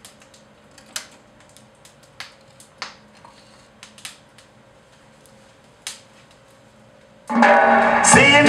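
Garrard record player turning with a faint steady hum, and several sharp clicks as the tonearm is handled and lowered onto a spinning 7-inch single. About seven seconds in, the stylus reaches the groove and the record starts playing loudly: music with guitar.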